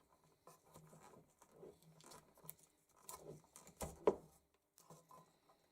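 Faint handling noises: scattered small clicks and rustles, with one sharper knock about four seconds in.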